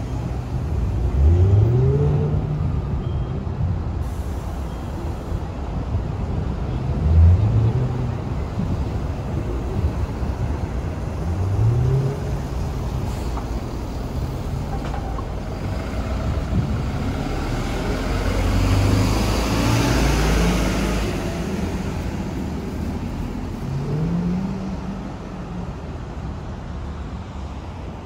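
City street traffic: vehicle engines pulling away with a short rising note, heard about five times, and a vehicle passing close about two thirds of the way through.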